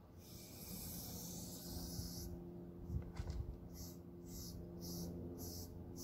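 Aerosol spray-paint can hissing: one long spray of about two seconds, then a run of short bursts about twice a second as the nozzle is pressed in quick strokes. A few low knocks about three seconds in.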